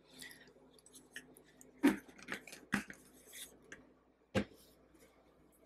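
Scattered light clicks and knocks of a plastic squeeze bottle and its screw-on nozzle cap being handled, the sharpest knock about four seconds in.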